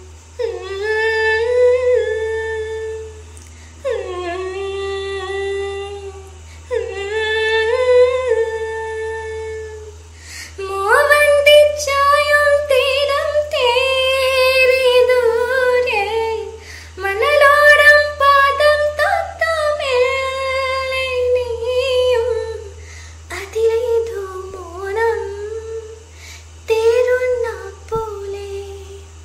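A woman singing a melody unaccompanied, in phrases of a few seconds with short breaths between them. A steady low hum runs underneath.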